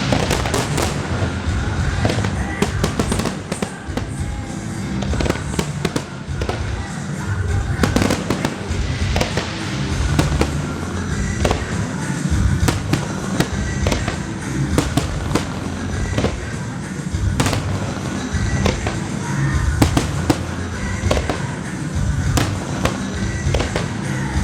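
Display fireworks bursting in rapid succession, with sharp bangs and crackling, over music from the show's sound system.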